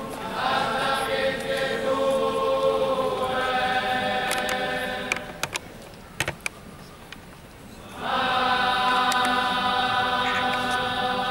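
A choir singing a slow chant in long held notes. The singing drops away for about three seconds around the middle, where a few sharp clicks are heard, and comes back strongly about eight seconds in.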